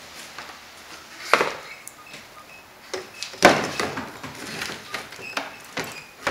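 A battery being set into a battery box: a series of knocks and bumps, with two louder thuds, one about a second in and a heavier one about three and a half seconds in.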